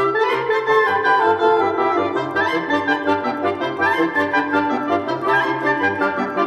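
Background music with woodwind and brass melody over a steady pulsing bass line.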